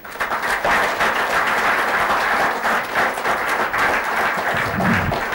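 Audience applauding: dense, steady clapping from many hands that breaks out all at once and keeps on evenly.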